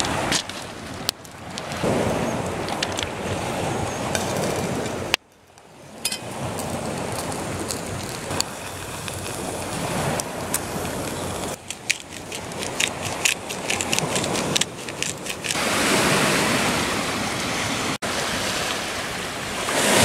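Waves washing onto a pebble beach, a steady wash of surf, with the sharp snaps and crackles of a wood campfire. The sound drops out briefly about five seconds in.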